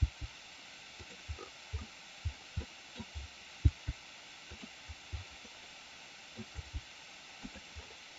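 Soft, short low thumps at irregular intervals, about two or three a second in places, over a faint steady hiss. The strongest come right at the start and about three and a half seconds in.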